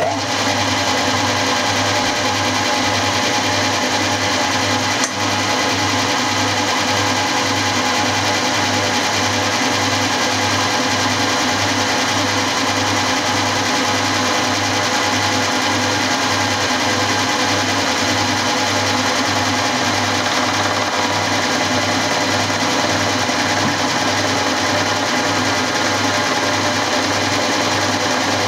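Milling machine running steadily while flycutting the top of a cast lathe saddle: a dense mechanical whine with a regular low beat about twice a second, and a brief click about five seconds in.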